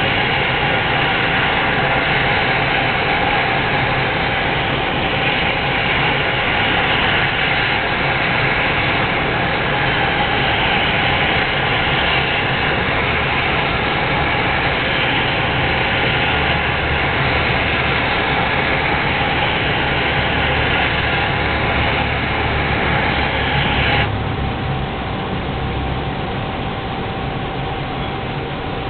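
Propane jet burner under a turkey-fryer pot burning with a loud, steady rushing noise. Near the end the noise suddenly drops to a lower, duller level.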